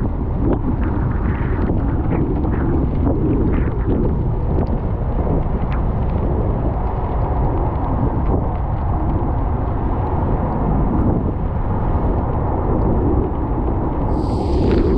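Steady low rumble of a car driving on wet roads in the rain, with a brief hiss near the end.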